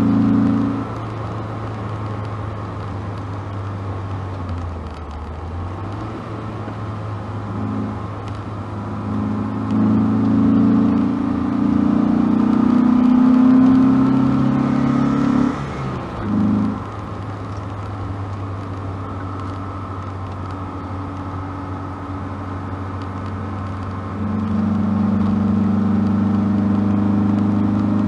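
Opel Kadett C Coupe's 2.0-litre fuel-injected four-cylinder engine and exhaust, heard from inside the cabin while driving. The engine note grows louder in stretches: at the very start, for several seconds in the middle where it climbs a little in pitch, briefly after that, and again near the end. Between those stretches it drops back to a steady, quieter drone.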